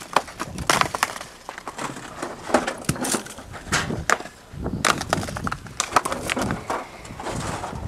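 Rocks being unloaded by hand from a utility vehicle's bed and tossed onto a rock pile: irregular clacks and knocks of stone on stone, with scraping between them.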